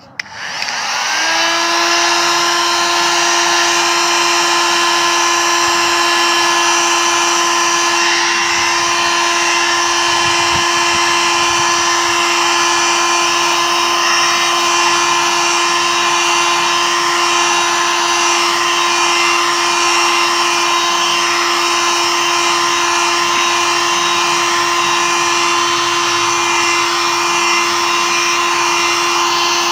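Small electric power tool motor switched on, spinning up to speed within about a second, then running steadily at one even high pitch with no change in load.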